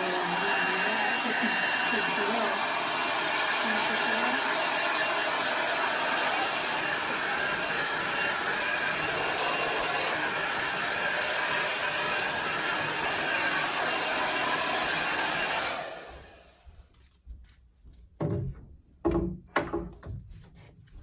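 Blow dryer running steadily while drying a dog's coat on a grooming table. It shuts off about three-quarters of the way through, and a few short knocks follow.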